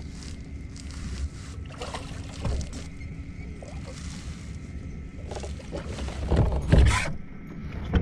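Wind rumbling on the microphone over a kayak on the water, with splashes and handling noise as a hooked fish is brought to the kayak and lifted out. The loudest splash comes a second before the end.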